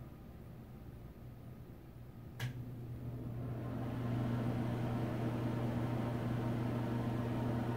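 A sharp click about two seconds in, then a Penn Zephyr ceiling exhaust fan spins up over a second or so and runs steadily, a low hum with the rush of moving air, in smooth working condition.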